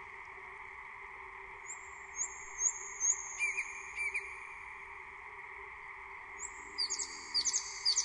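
Nightingale singing: a series of four long, high whistles, each opening with a short upward flick, then a couple of sharper notes and, near the end, a fast run of repeated notes. A steady faint background noise lies underneath.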